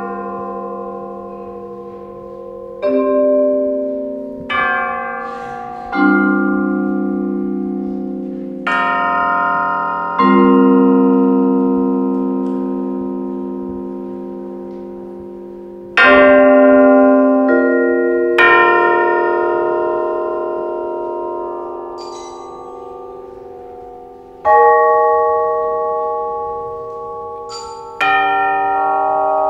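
Percussion ensemble playing slow, sparse music on tubular bells and a mallet keyboard. About nine struck chords are spaced a few seconds apart, each ringing out and fading before the next.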